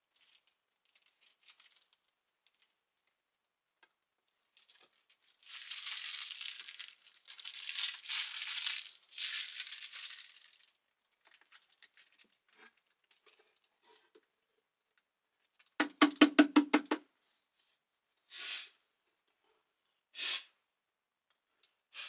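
Wooden box parts being handled on a workbench: three long scraping hisses, then a quick rattle of about eight sharp wooden clacks, followed by a few single knocks.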